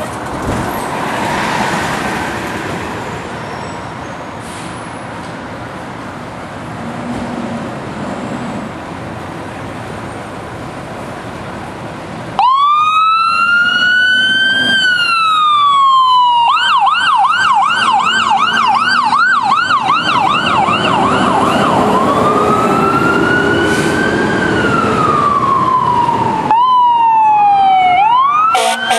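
Street traffic noise, then about twelve seconds in a fire apparatus siren starts loudly: a slow wail rising and falling, switching to a fast yelp of about two to three sweeps a second, then back to the slow wail.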